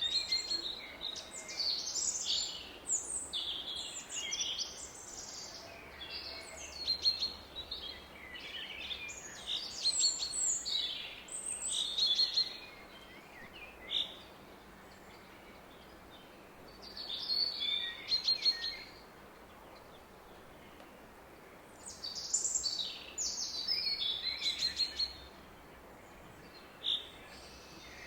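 Songbirds singing and chirping in quick high phrases that come in bouts with short quiet gaps between them. A faint steady roar of a distant river lies underneath.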